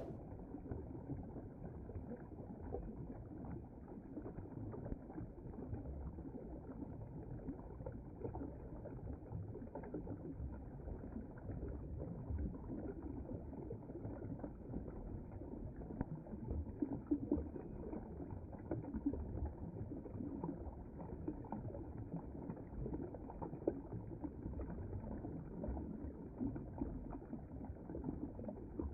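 Stream water running steadily over and between rocks.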